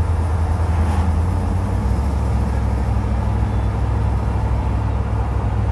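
Steady low drone of an RV's engine and tyre noise heard from inside the cab while it drives along a paved road.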